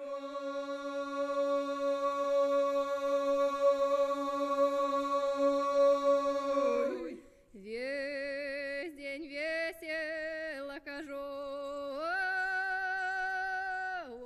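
A single voice singing wordlessly without accompaniment: one long held note for about seven seconds, then a wavering melody with vibrato.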